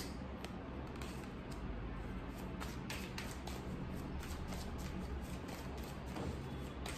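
Tarot cards being handled and drawn from a deck: irregular light clicks and flicks of card stock, over a steady low hum.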